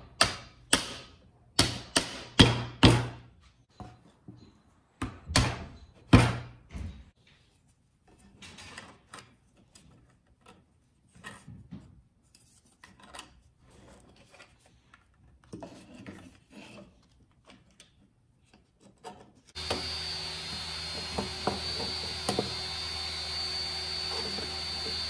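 A mallet knocks 3D-printed plastic mount parts together: a quick run of about six sharp knocks, then two more a few seconds later. Quieter clicks and rubbing follow as the plastic brackets and tilt plates are fitted by hand. Near the end a steady hiss with a faint hum comes in.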